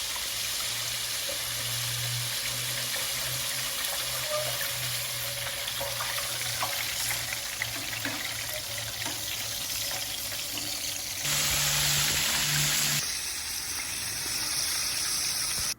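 Steady hissing and bubbling from a deep fryer's hot liquid, with a low hum underneath. The sound changes abruptly about eleven seconds in and again about two seconds later.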